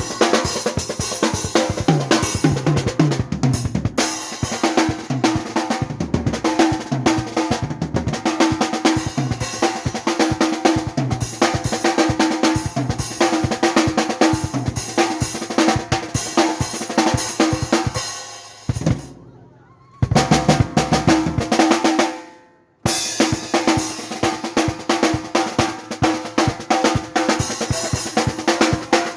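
Drum kit played hard in fast patterns and rolls: kick, snare and toms with cymbals. The playing dies away twice around two-thirds through, each time briefly stopping before starting again.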